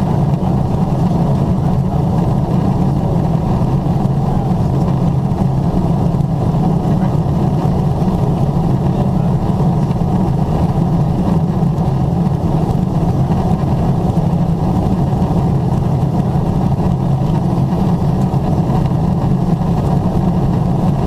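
Steady, loud drone of a Boeing 777-300ER in flight, heard inside the cabin: airflow and engine noise, deep and muffled, without change.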